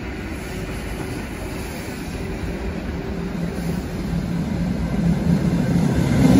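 EP2D electric commuter train approaching along the platform. Its running noise grows steadily louder, with a low hum rising toward the end as it draws close.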